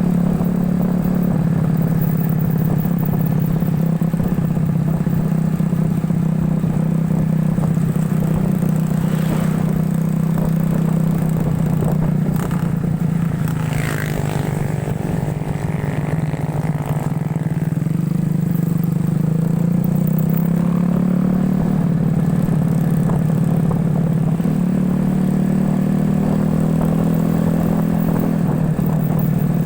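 The motorcycle engine of a home-built ATV runs steadily under way. Its note drops and wavers around the middle, then picks up again.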